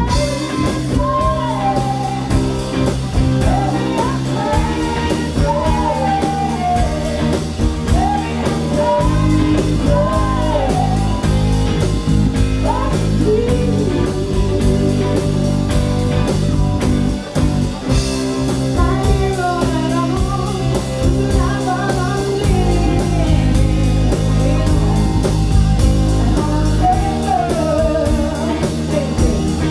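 Live blues-rock band playing: electric guitars, electric bass and a drum kit keeping a steady beat, with a lead vocal over the top.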